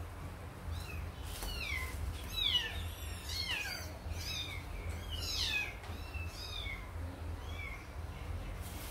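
Kitten meowing over and over, a run of short, high-pitched calls that each fall in pitch.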